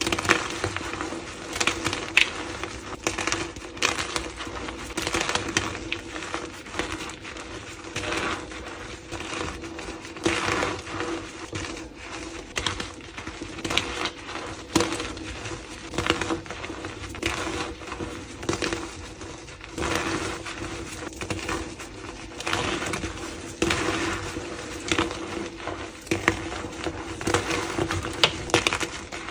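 Blocks of gym chalk being crushed and crumbled, giving an irregular run of crisp crunches and cracks with a faint steady hum underneath.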